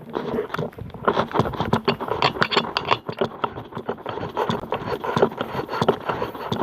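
Dense, irregular scraping and rattling made of many small knocks and clicks close to the microphone.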